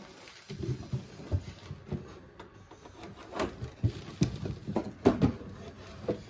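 Hands handling wooden clock cases: a run of irregular soft thumps and knocks, with a few sharper clicks.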